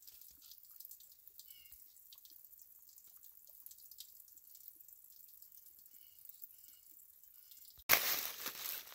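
Meltwater dripping and trickling from icicles into a shallow creek: faint, with many small drips. About a second before the end, a sudden loud rushing noise cuts in.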